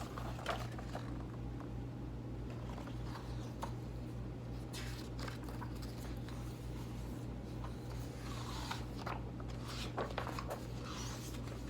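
Steady low hum with a few soft rustles and taps from a picture book's paper pages being handled and turned.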